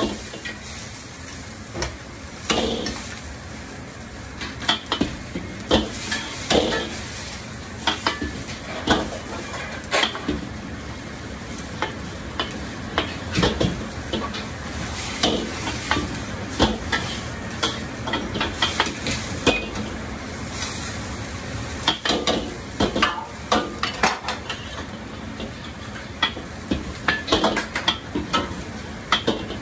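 Food frying in two woks on gas burners, a steady sizzle from chopped long onion stir-frying in one and a noodle cake pan-frying crisp in oil in the other. Frequent irregular metal clanks and scrapes of a ladle against the wok are the loudest sounds.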